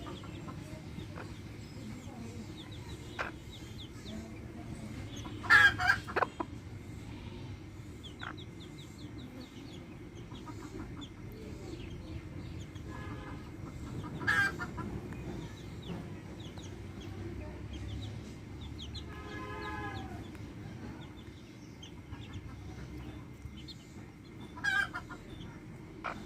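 Backyard hens clucking, with a few loud squawking calls about five, fourteen and twenty-five seconds in. Their chicks cheep faintly and steadily throughout.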